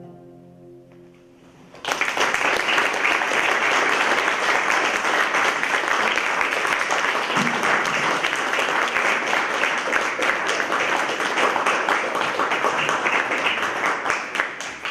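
The last plucked notes of an oud ring out and fade. About two seconds in, applause breaks out and carries on steadily, dying away near the end.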